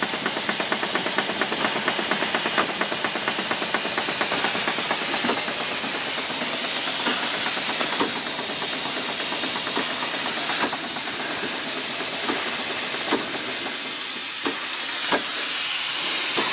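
Steam hissing steadily over the fast ticking beat of small steam machinery. In the second half separate clunks come roughly once a second: the Southworth 12 steam feed pump stroking slowly as it pushes water against boiler pressure.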